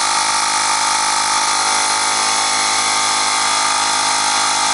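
Slime compact 12-volt tire inflator running steadily and pretty loud: its small electric air compressor is pumping up a motorcycle's rear tire.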